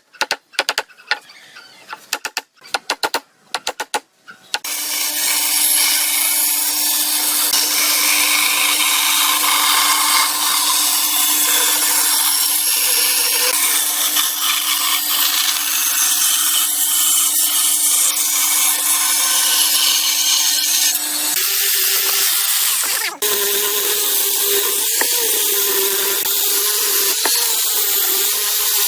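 Electric power tool working wood. A few sharp clicks and knocks come first, then about four seconds in the motor starts and runs steadily with a loud hiss of cutting or abrading. Its hum steps up in pitch later on, with a brief dip.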